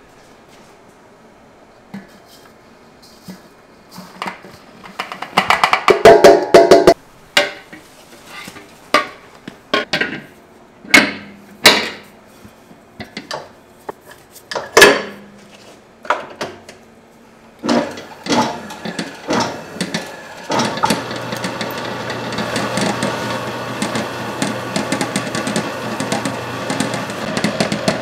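Bakery kitchen work: scattered knocks and clatters of tools and utensils, with a denser run of clattering about six seconds in. About twenty seconds in, a machine starts running with a steady hum.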